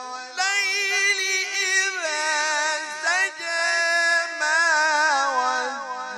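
A man's voice reciting the Quran in melodic, sung style in maqam nahawand. He holds long notes with wavering melismatic ornaments, with a brief pause for breath about three seconds in.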